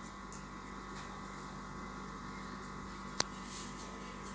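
Steady low electrical hum, with a single sharp click about three seconds in.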